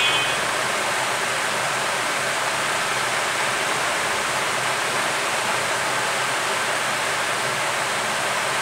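Hot air rework gun blowing a steady, even hiss of hot air, desoldering a capacitor from a mobile phone's circuit board.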